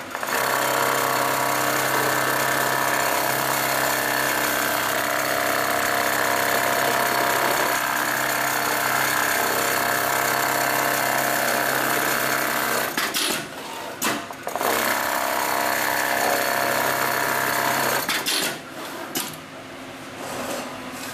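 Hightex automatic pattern sewing machine stitching leather in a clamp frame, running at high speed as a steady, rapid mechanical chatter over a low hum. It breaks off about 13 seconds in with a few sharp clicks, runs again, and stops about 18 seconds in, followed by a few more clicks.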